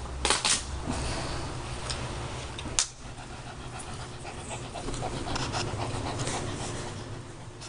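Small long-haired dog panting with its mouth open. A few sharp clicks come in the first three seconds, the loudest about three seconds in.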